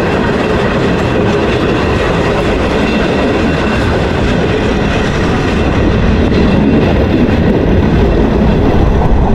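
Passenger train running along the track, heard from on board: a steady, loud noise of wheels and carriage on the rails, growing a little louder about six seconds in.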